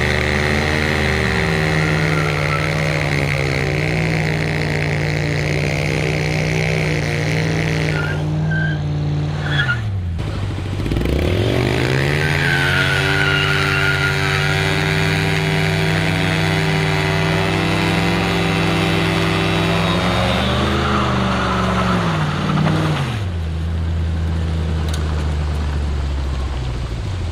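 A vehicle engine revved up and held at steady high revs for several seconds. It drops away about ten seconds in, then revs up again and holds until it falls off near the end, with a high hiss over the held stretches.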